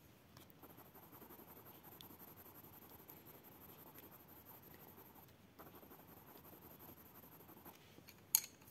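Coloured pencil scratching faintly over paper as a swatch is shaded, with a brief pause about five and a half seconds in. A single sharp click near the end.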